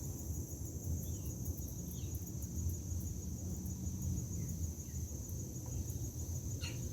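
Steady high-pitched insect drone, typical of crickets, over a low rumble, with a few faint short chirps.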